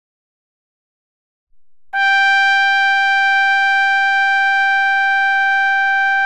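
Silence, then a single long horn blast on one steady note that starts suddenly about two seconds in.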